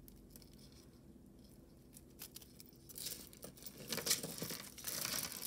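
Costume-jewelry necklaces being handled while a clasp is worked open: faint clicks and rustles of metal chain and plastic beads. Near quiet at first, the clicks start about three seconds in and grow busier toward the end.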